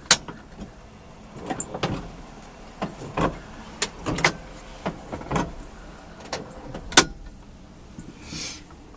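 Pontiac Trans Am's windshield wipers switched on and sweeping: a sharp switch click at the start, then the low run of the wiper motor broken by a string of irregular clicks and knocks as the blades travel and reverse.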